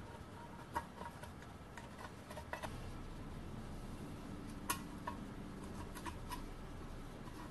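Small metal parts of a model steam engine kit clicking and tapping as they are handled and fitted together by hand: a dozen or so scattered light clicks, the sharpest a little past the middle. A faint low steady hum comes in about a third of the way through.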